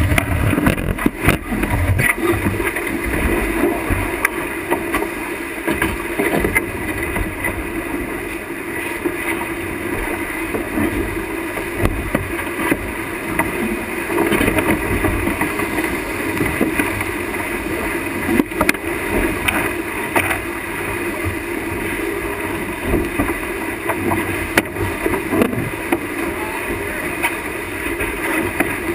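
Wind and water rushing aboard a sailboat heeled hard and moving fast: wind buffeting the camera microphone and water streaming past the hull and spraying over the deck, in uneven gusts. A few sharp knocks stand out, one near the start and two in the second half.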